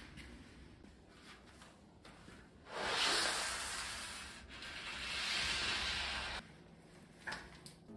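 Glass shower door sliding along its track: a rubbing swish in two long pushes that starts about three seconds in and stops abruptly about three and a half seconds later, followed by a short click.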